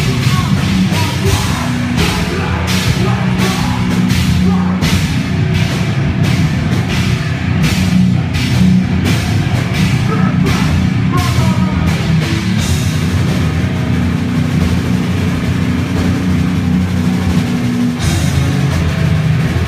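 Hardcore band playing live, loud and heavy: distorted electric guitar, bass guitar and drum kit. Hard, frequent drum hits for about the first twelve seconds give way to a more sustained, ringing passage with fewer hits, changing again near the end.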